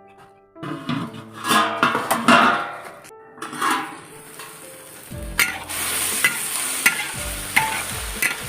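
Eggplant and meat stir-frying in a wok: a metal spatula scraping and knocking against the pan in regular strokes while the food sizzles. About five seconds in the sizzle turns into a loud, steady hiss.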